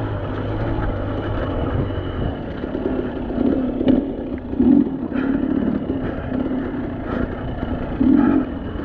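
Dirt bike engine running at trail speed, its note swelling and easing every second or two as the throttle is worked over rocky single track.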